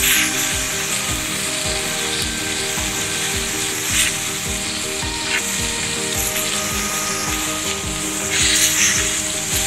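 Boneless ribeye steak sizzling as it pan-fries in oil on its second side, a steady hiss that swells briefly twice. Background music with held notes and a steady beat runs underneath.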